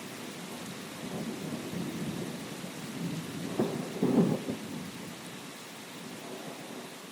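Thunderstorm: steady rain hiss under low rolling thunder. The thunder swells to its loudest about halfway through, with a sharper crack followed by a rumble, then eases off toward the end.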